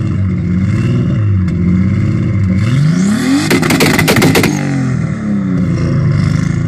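Nissan Skyline R33 GTS-t's turbocharged 2.5-litre RB25DET straight-six being revved again and again, its pitch rising and falling. At the highest rev, about halfway through, there is about a second of rapid crackling.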